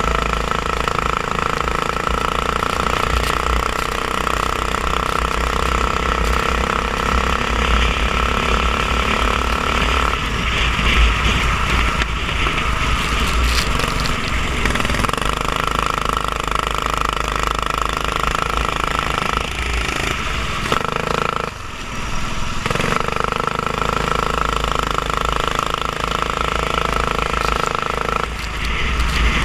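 Racing kart engine running hard, heard close from a camera mounted on the kart. Its note holds steady for long stretches and changes briefly about ten seconds in and again around twenty seconds in.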